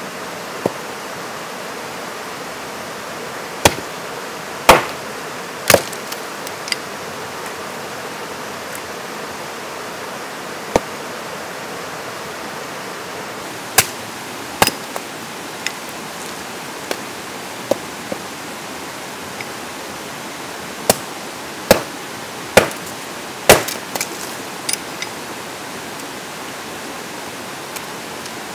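Firewood being split into kindling by hand: about a dozen sharp chopping strikes on wood, coming in irregular groups, over the steady rush of a creek's rapids.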